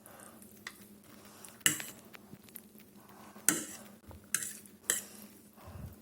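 A metal utensil clinking against a bowl or pot while stirring instant noodles: a few sharp clinks at uneven intervals.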